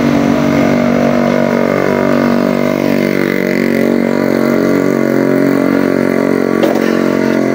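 A road vehicle's engine runs at a steady speed while driving, a loud, even drone that holds one pitch throughout.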